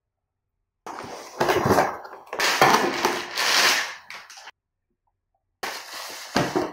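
Plastic wrapping crinkling and rustling as a power adapter and its cable are pulled out of a clear plastic bag, in two bouts: a long one starting about a second in, and a shorter one near the end while a soft white wrap is handled.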